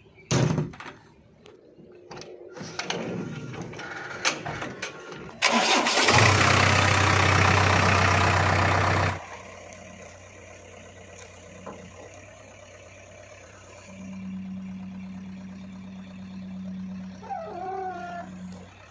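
JCB 3DX backhoe loader's diesel engine being started: a few clunks and knocks from the cab, then about five seconds in the engine fires and runs loud for some three seconds before dropping to a steady idle. A steady low hum joins in near the end.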